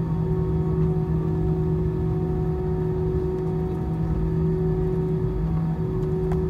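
Airbus A320-200 cabin while taxiing: the jet engines' steady hum at idle over the low rumble of the aircraft rolling, heard from inside the cabin.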